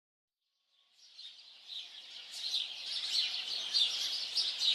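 A chorus of many small birds chirping and singing over one another, fading in from silence about a second in and growing louder.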